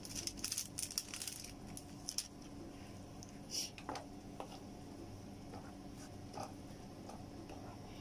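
A seasoning sachet crinkling as it is shaken out over a pan for the first second and a half. Then a few light taps and scrapes of a wooden spatula in a nonstick frying pan, over a faint steady hum.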